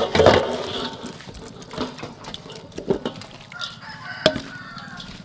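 Shredded vegetables and carrot scraped off a tray and sliding into a steel bowl, then tossed with a wooden spatula that knocks against the bowl, sharpest about four seconds in. An animal calls in the background near the end.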